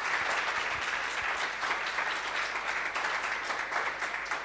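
Audience applauding to welcome the speakers, steady clapping that starts to fade near the end.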